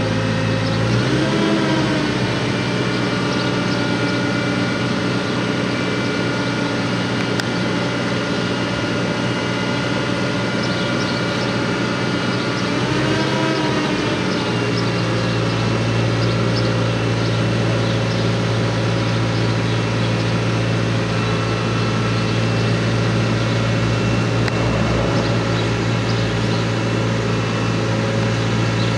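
Caterpillar TH355B telehandler's diesel engine running steadily while the boom raises and extends, with a steady high whine over the engine note. Engine speed rises briefly about a second in and again about halfway through, and the engine note is heavier after the second rise.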